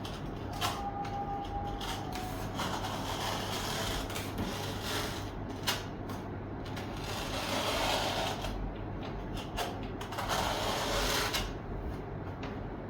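Hand work at a bench: several bursts of scraping and rustling, with scattered sharp clicks and knocks, over a steady low hum.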